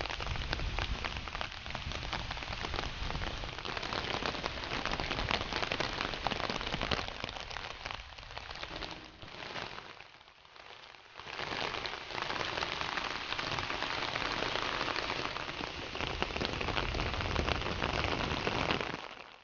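Steady rain falling, a dense hiss of many drops that dips briefly about halfway through before returning.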